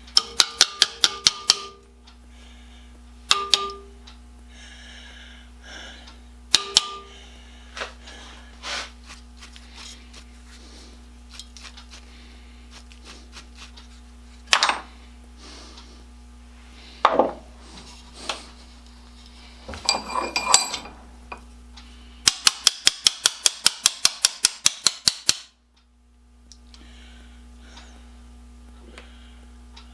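Metal hand tools worked on a threading tap: quick runs of sharp metallic clicks, about six a second, near the start and again about two-thirds through, with scattered single clicks and knocks between. A faint steady hum runs underneath.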